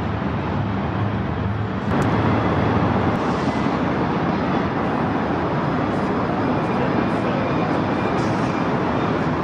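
Distant diesel freight locomotives and city traffic heard from high above: a steady low engine drone for about two seconds, then, after a cut, an even, slightly louder rushing noise.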